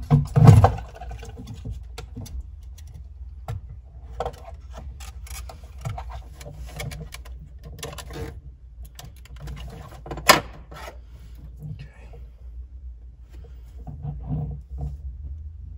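Plastic clicks, taps and knocks from the fuel pump module being handled and lifted out of the fuel tank, with a heavier thump about half a second in and a sharp click about ten seconds in.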